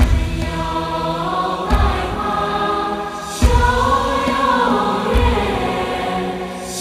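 Soundtrack music: held, chant-like sung voices that slide slowly in pitch, over a deep low thud that comes about every 1.7 seconds.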